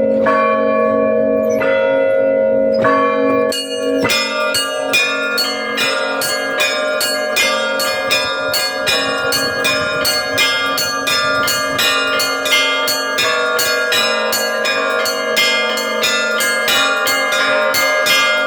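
Russian Orthodox church bells rung by one ringer: a few spaced strikes over the steady hum of the larger bells, then, about four seconds in, a fast full peal with the small bells struck three or four times a second.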